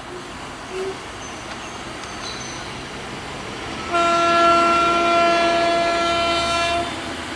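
Diesel locomotive horn sounding one long blast of about three seconds, starting about four seconds in, as the train approaches in the distance. Before the blast there is only the steady far-off noise of the oncoming train.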